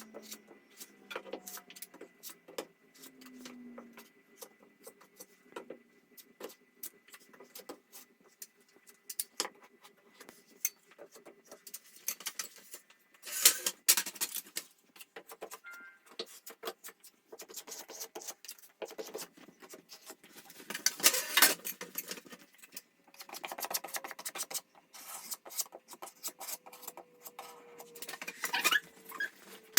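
Filler knife scraping and tapping on a ceiling as filler is spread in patches over a mesh-taped crack: irregular clicks and short scrapes, with longer runs of scraping around the middle and near the end.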